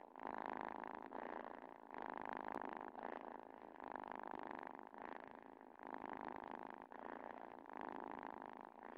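Domestic cat purring in a steady rhythm of swells about a second apart, following its breaths, while worked up by the smell of valerian.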